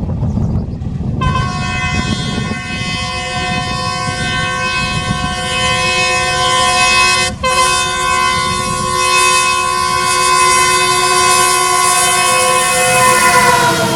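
Alco WDM3A diesel locomotive sounding its multi-tone air horn in two long blasts, the first starting about a second in and the second following a brief break about halfway, over a low rumble. The horn's pitch falls slightly near the end.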